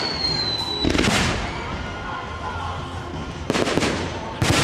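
Aerial fireworks shells bursting overhead: a sharp bang about a second in, another about three and a half seconds in, and a heavier one near the end. A thin high whistle, falling slightly in pitch, cuts off just before the first bang.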